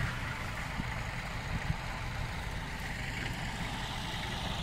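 Off-road vehicle engine running at low revs: a steady low rumble.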